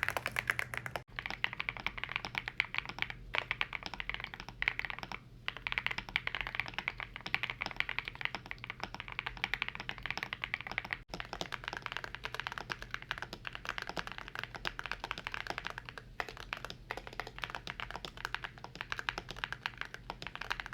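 Fast, continuous typing on a YUNZII C75 mechanical keyboard: a dense stream of key clacks with a few short pauses.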